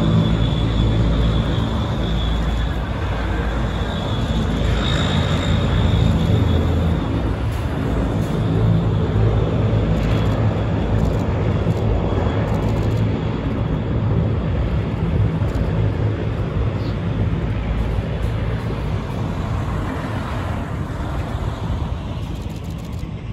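Military aircraft engines running loud and steady, then slowly fading as the aircraft moves away.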